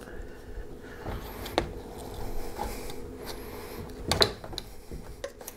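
Hands pressing and rubbing aluminium foil tape onto a cracked plastic car bumper: faint rustling, with a few short, sharp clicks about a second and a half in and again about four seconds in.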